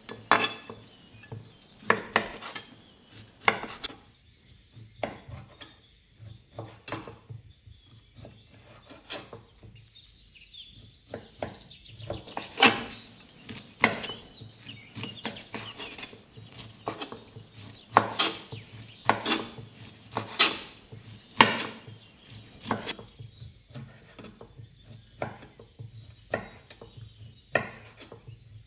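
Chef's knife dicing cooked ham slices on a wooden cutting board: irregular sharp knocks of the blade striking the board, with short pauses between runs of cuts.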